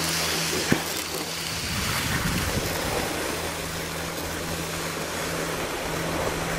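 Steady rushing wind noise on the camcorder microphone as it moves down the ski slope, over a low steady hum from the camera, with one brief click under a second in.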